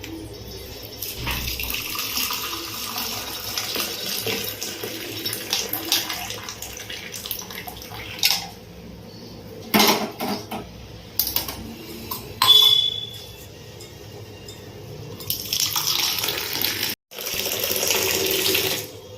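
Hot masala milk tea being poured through a strainer and poured back and forth between vessels to cool it. About four sharp clinks of a spoon and vessels fall in the middle.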